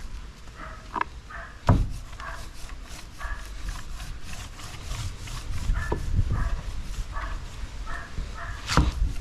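A dog's short, repeated yips and barks, with three sharp knocks, the loudest about two seconds in.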